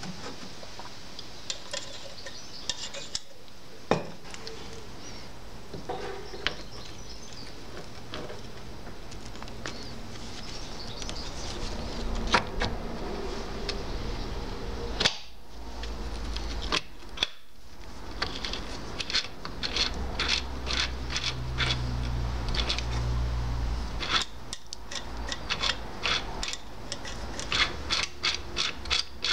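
Metal parts of a mower's chain-drive gearbox being handled, with scattered clinks and knocks, then a run of regular clicking from about two-thirds of the way in as the roller chain is worked over its sprocket. The clicks quicken to about three or four a second near the end.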